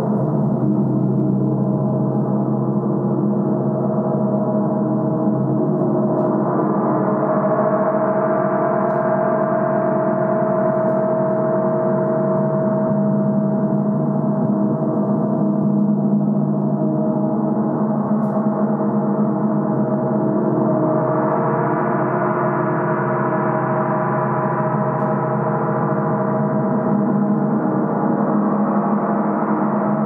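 A large 60-inch symphonic gong sounding in a continuous wash of many overlapping tones, kept going without separate strikes. The sound swells brighter twice, about a quarter of the way in and again past the two-thirds mark.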